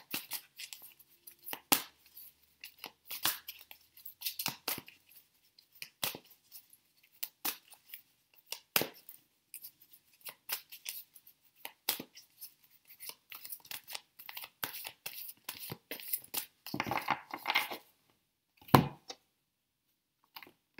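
A deck of oracle cards being shuffled by hand, the cards flicking and slapping against each other in quick, irregular clicks, with a denser rustle of cards about 17 seconds in. One louder knock near the end as the deck comes down on the wooden table.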